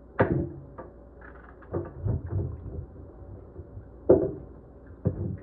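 Knife slitting green banana peel and hands prying the peel away over a metal pan of water: a few short knocks and scrapes, the loudest near the start and about four seconds in.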